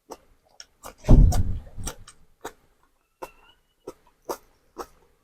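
Close-miked eating sounds during a meal: scattered sharp mouth and utensil clicks at uneven intervals, with one louder low thud about a second in.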